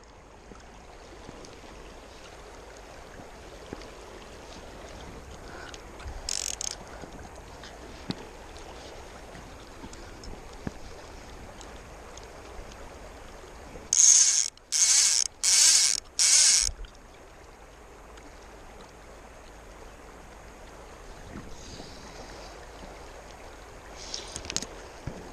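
Fly reel's click-and-pawl drag ratcheting in four quick pulls about two-thirds of the way through, as line is stripped off the reel, with one shorter burst earlier. A steady rushing noise runs underneath.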